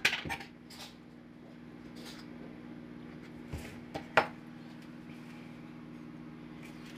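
A few clinks and knocks of a metal measuring spoon and table knife against the counter and a ceramic mug as peanut butter is scooped out, the sharpest clink about four seconds in. Under them runs the steady low hum of a microwave oven running.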